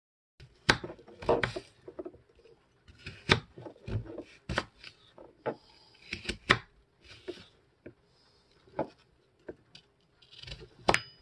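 Kitchen knife cutting a peeled apple into chunks on a plastic cutting board: irregular sharp taps and cuts, a dozen or so, some much louder than others.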